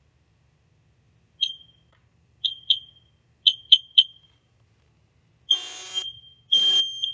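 FireX model 7000 smoke alarm sounding on its test button, powered by its original battery, which still holds a charge. It gives short high beeps, one, then two, then three, and from about five and a half seconds in changes to longer, louder beeps.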